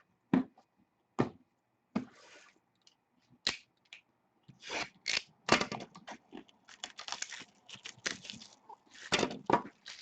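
Packaging being torn open and crinkled: a few sharp clicks, then from about halfway a dense run of crackling and tearing as the second sealed box of cards is unwrapped.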